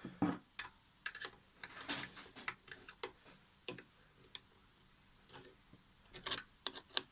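Irregular light clicks and taps of hand tools and small parts being worked on an old sliding mitre saw during disassembly and cleaning, with a quick run of clicks near the end.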